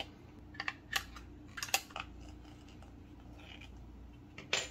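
Small plastic clicks and light knocks from handling a Blink Outdoor battery camera: its back cover being worked and AA batteries fitted, a few scattered clicks with a louder snap near the end.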